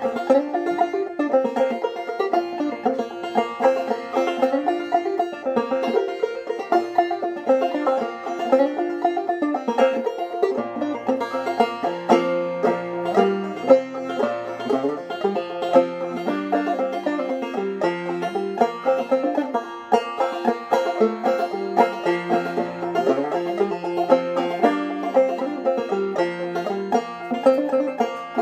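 Solo clawhammer banjo on a 1922 Vega Little Wonder fitted with a modern BC-350 neck, playing a tune in a steady, unbroken stream of plucked notes.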